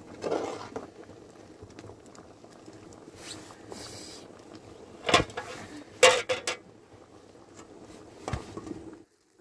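A pot of water bubbling at the boil over a wood fire, with a few sharp metal clanks of a utensil and the lid against the pot. The loudest clank, about six seconds in, rings briefly.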